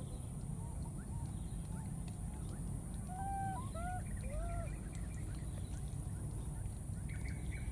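Baby macaque calling in short arched coos, three in quick succession about three seconds in, with a few fainter ones earlier, over a steady low rumble.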